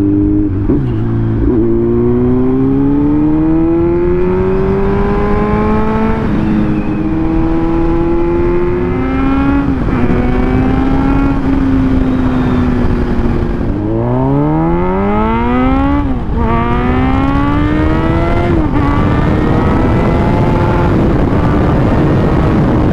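Kawasaki Z900's inline-four engine breathing through an aftermarket MIVV silencer, revving up hard through the gears. The pitch climbs and drops sharply at each upshift, four times, with steadier cruising in between.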